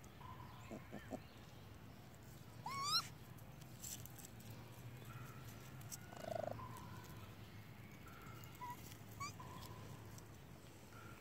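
Baby raccoons giving short, high chirping cries. The loudest is a rising cry about three seconds in, with a shorter one midway and a small rising one near the end.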